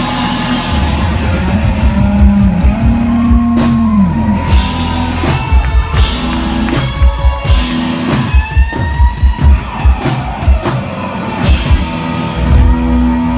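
Live rock band playing, drum kit and electric guitar to the fore, recorded loud and close from the audience.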